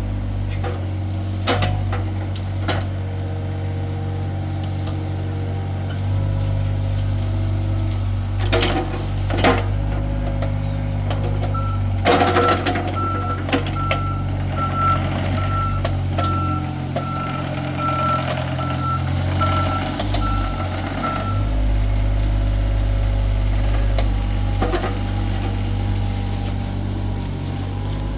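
John Deere 26G mini excavator's diesel engine running steadily under load, with a few sharp clanks from the bucket and arm. About twelve seconds in, its travel alarm starts beeping about twice a second while the machine tracks, and it stops near the twenty-second mark.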